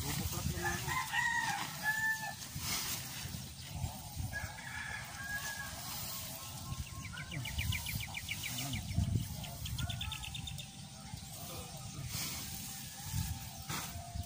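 A rooster crowing, once about a second in and again around four seconds, over a steady low rumble. Midway a fast, high-pitched rattling trill runs for a few seconds.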